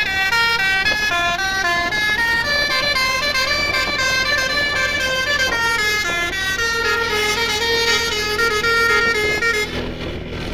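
Basuri telolet musical bus horn playing a long tune of stepped notes, several horn tones sounding together, cutting off near the end.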